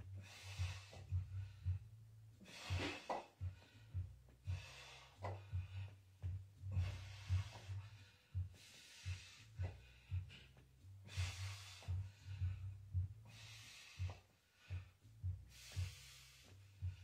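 A person breathing hard through dumbbell bench presses, with a sharp hissing exhale roughly every second or so, one for each rep. Underneath runs a thumping bass beat from music.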